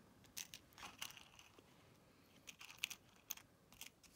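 Faint, scattered clicks and crinkles of small metal bulb pins being handled in a plastic compartment box, with rustling of the plastic packaging.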